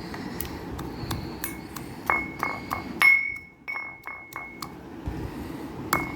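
A pestle striking in a mortar, pounding herbs and whole spices into a paste. Irregular clinking strikes, several of them leaving a short ringing tone. The loudest strike comes about three seconds in, then there is a pause of over a second before the strikes resume near the end.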